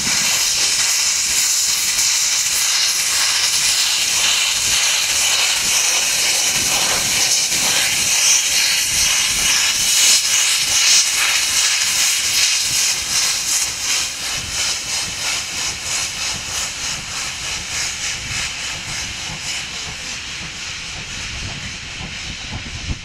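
Floridsdorf-built steam locomotive 16.27 moving off with its cylinder drain cocks open, a loud steady hiss of escaping steam. In its second half the hiss pulses in a regular beat, and it grows quieter near the end as the locomotive draws away.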